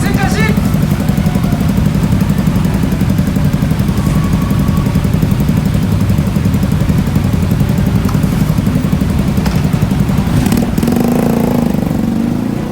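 Motorcycle engine running loud and steady. There is a short click about ten and a half seconds in, after which the engine note changes.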